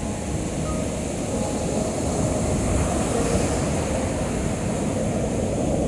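Ocean surf breaking and washing up a sandy beach, a steady rushing rumble.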